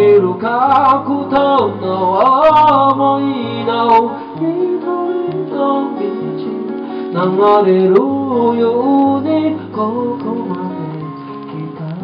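A man singing a slow song in Japanese to his own strummed steel-string acoustic guitar, heard live through the PA. The sung phrases come at the start and again from about seven seconds in, with the guitar carrying on between them.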